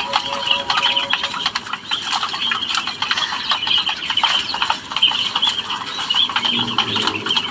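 A flock of caged Japanese quail: a constant chorus of high, overlapping chirps and peeps over a dense patter of small clicks and taps from the birds on the wire cage floor.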